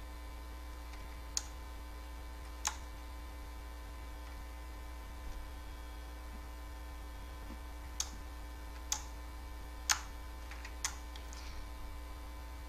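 Steady electrical mains hum with six short, sharp clicks scattered through it, two early and four close together in the second half, as menus are stepped through on the Kodi setup.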